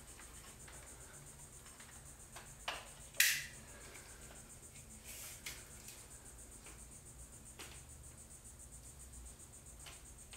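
A tape measure's blade retracting into its case, ending in two sharp clicks about three seconds in, then a few lighter taps. A faint, steady high-pitched whine runs underneath.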